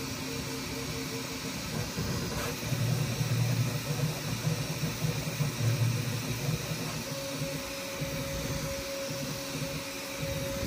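Bambu Lab P1S 3D printer running mid-print: stepper motors whirring and cooling fans hissing as the toolhead moves over the bed. A louder low hum swells between about three and six seconds in, and a steady whine comes in over the second half.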